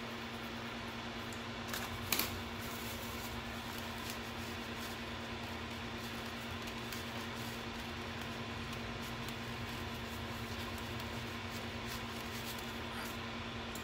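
Bench fume extractor fan running with a steady whir and a low hum, with two short sharp clicks about two seconds in.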